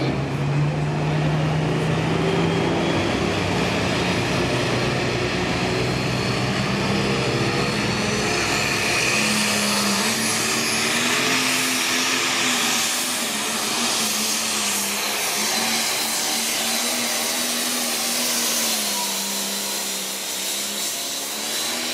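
Limited pro stock pulling tractor's turbocharged diesel engine running hard at high, steady revs under load down the track. Its pitch steps up about ten seconds in and sags slightly near the end.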